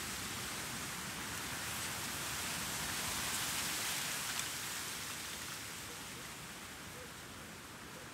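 Outdoor breeze ambience: a soft, steady hiss of wind that swells slightly about three to four seconds in, then eases off.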